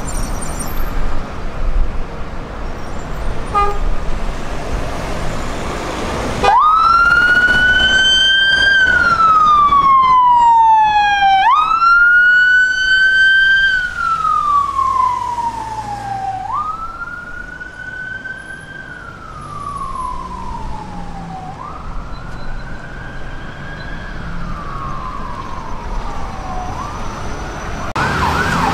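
Road traffic, then a Metropolitan Police van's siren starts suddenly about six seconds in: a wail that climbs quickly and falls slowly, repeating about every five seconds and fading as it goes. Near the end a faster yelping siren begins.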